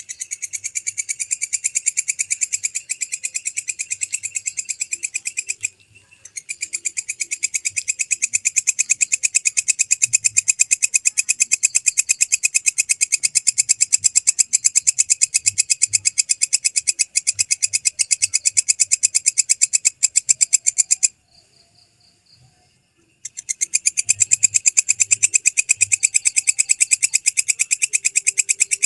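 Belalang kecek (walang kecek) katydid stridulating: long, rapid, pulsing high trills. They break off briefly about six seconds in and again for about two seconds near the three-quarter mark.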